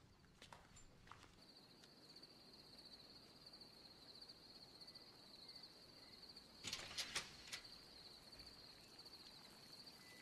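Crickets chirping steadily at night, a thin high trill that sets in about a second and a half in, with a few soft knocks about seven seconds in.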